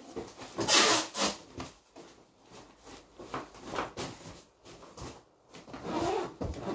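Rustling and rubbing as things are handled and packed into a large cardboard box, in irregular scrapes, with one louder scrape about a second in.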